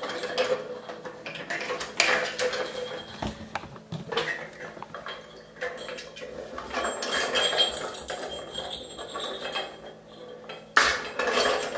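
Hard plastic cat toy clattering and knocking on a hard countertop as a Bengal kitten bats at it: irregular clicks and rattles, with a louder knock near the end.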